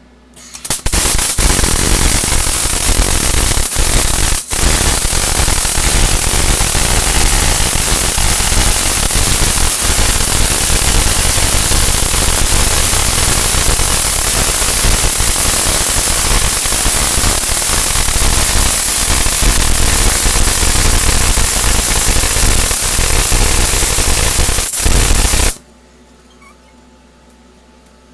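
Wire-feed welding arc from a Thermal Arc Fabricator 141i laying one long weld bead. It runs loud and steady for about 25 seconds, with two brief breaks around four seconds in, and cuts off suddenly near the end.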